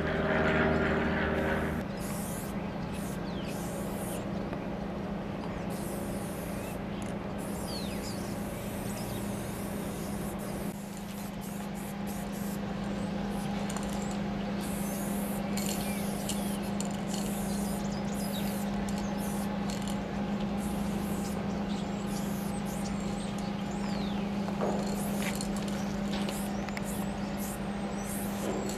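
Aerosol spray-paint can hissing on and off in short bursts as paint goes onto a freight car's steel side, over a steady low hum.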